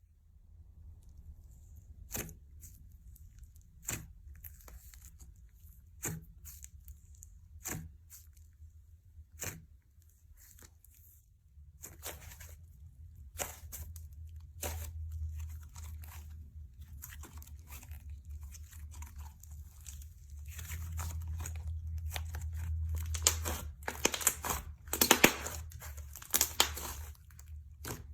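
Slime being handled and stretched, giving sharp crackles and pops: single pops about every two seconds at first, then denser crackling that is loudest near the end.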